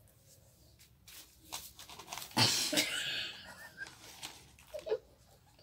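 Breathy laughter from a woman: a run of short puffs of air, loudest about two and a half seconds in.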